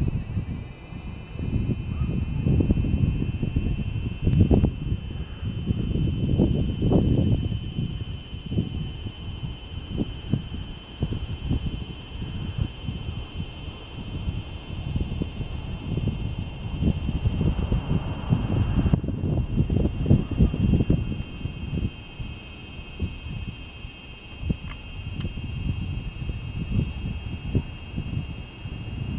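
Cicada buzzing in one continuous, steady high-pitched drone that dips briefly about two-thirds of the way through. Irregular low rumbling runs underneath.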